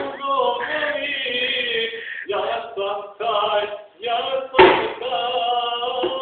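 Male voices singing a chant with long held notes, in phrases broken by short pauses, and a sudden loud burst about four and a half seconds in.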